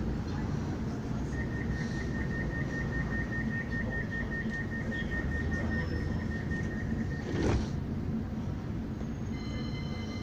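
CAF Urbos tram of the Midland Metro running, a steady low rumble. A thin high pulsing tone sounds for about six seconds, and a single sharp knock comes about seven and a half seconds in.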